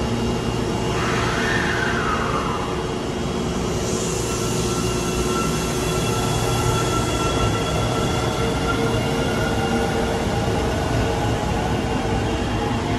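Osaka Metro 23 series subway train pulling out of an underground station. Its traction-motor whine rises steadily in pitch as it accelerates, over a continuous rumble of wheels on track.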